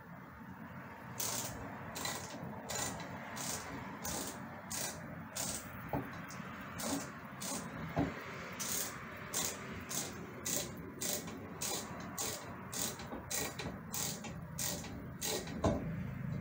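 Screwdriver working a screw on a metal ceiling light fixture: a steady run of short scraping strokes, about two a second, with a couple of sharper clicks.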